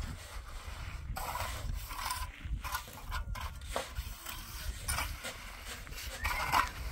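Animal calls, one arched call loudest near the end, over a steady low rumble.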